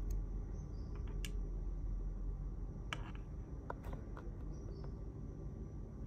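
A few small clicks and taps as a 3.5 mm audio cable and its metal plug are handled over the wireless mic units, over a steady low room hum.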